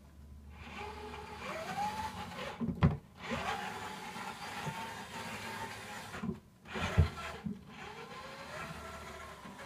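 Servocity HD planetary gear motors (12 V, 128 RPM, run here at 15 V) driving a plywood-box robot: a gearbox whine that rises in pitch as each move gets going. The drive stops twice, with a sharp clunk around each stop.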